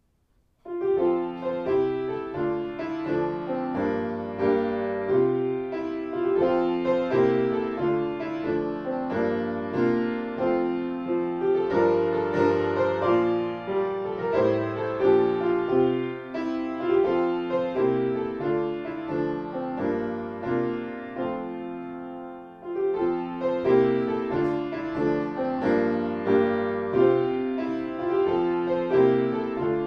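Instrumental piano music, starting about half a second in after near silence, with a brief lull about three-quarters of the way through before the playing resumes.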